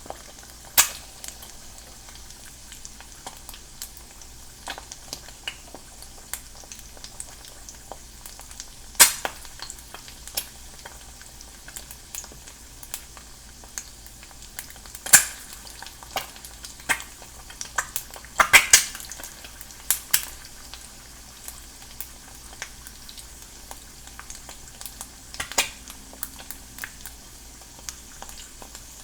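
An egg frying in a non-stick pan: a steady high sizzle with scattered sharp crackles and pops of spitting fat, a cluster of loud pops about 18 seconds in.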